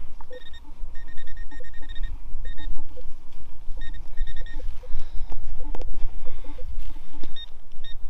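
Metal detector pinpointer beeping in the hole, short high beeps coming singly and in quick runs as it finds the target, with lower short blips from the detector mixed in. A constant low rumble runs underneath.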